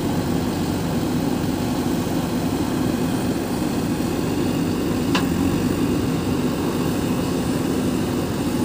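JCB 3DX backhoe loader's diesel engine running steadily as the backhoe arm digs and swings a load of soil over to the trolley, with one short sharp click about five seconds in.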